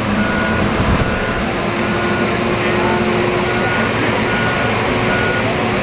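Forestry harvester's diesel engine running steadily, with a short high warning beep repeating a little faster than once a second.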